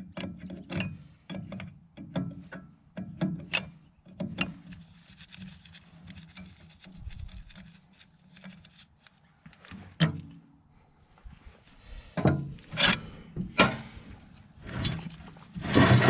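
Hand-tool work on a stationary engine's clutch output flange and driveshaft coupling: a quick run of sharp metal clicks and knocks in the first few seconds, a single sharp knock about ten seconds in, then several longer scraping rasps near the end.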